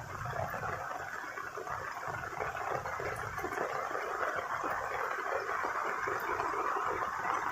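Heavy rain falling steadily, a dense even hiss of many fine drops.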